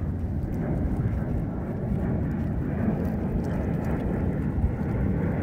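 Steady low outdoor rumble with no clear rise or fall.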